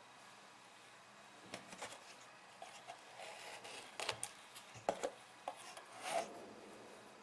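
Thin clear plastic cups and a snap-on lid being handled: quiet rubbing of plastic with a few light clicks and taps, the sharpest a little past the middle.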